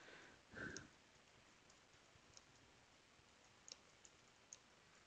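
Near silence with a few faint computer keyboard key clicks as text is typed. A brief soft sound a little over half a second in.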